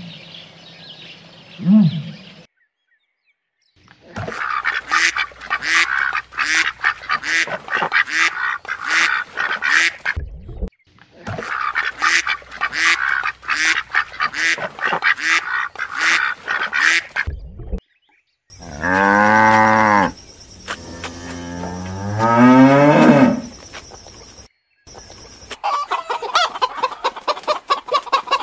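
Geese honking in quick repeated series, about two honks a second, in two long bouts separated by a short break. Later come two drawn-out calls that glide in pitch, then chickens clucking near the end.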